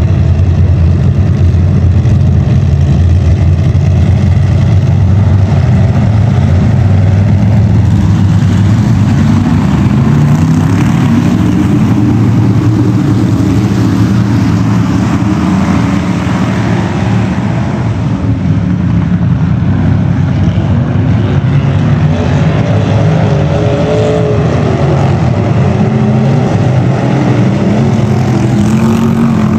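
A field of Bomber-class dirt-track race cars running around the oval together: several engines at once, their pitch rising and falling as they accelerate down the straights and lift for the turns. One car passing close gets louder about halfway through.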